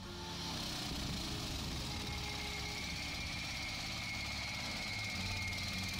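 A motor vehicle engine running steadily, with a steady high whine over the low rumble.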